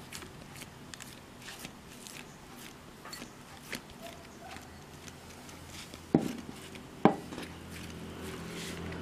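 Fingers patting and pressing soft rice-flour dough flat on a banana leaf: a run of faint, irregular soft taps and leaf crackles, with two louder knocks about a second apart past the middle.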